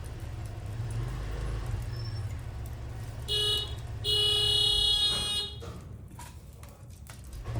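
Two electronic beeps over a steady low hum: a short beep, then a longer one held for about a second and a half, followed by a few faint clicks.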